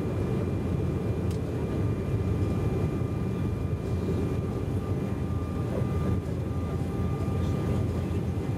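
Cabin noise of an Embraer E195 at takeoff and initial climb, heard from a seat over the wing: a steady low roar from its GE CF34 turbofans, with a faint steady high whine.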